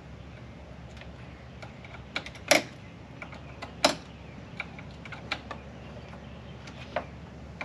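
Irregular sharp metallic clicks and taps of a hand tool working the collars on a shifter kart's steering shaft, two of them markedly louder: one about two and a half seconds in and another a second and a half later.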